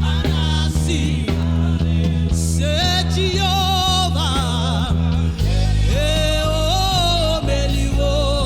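Gospel worship song: singers with vibrato over a band with a sustained bass line that moves to a new chord about five and a half seconds in.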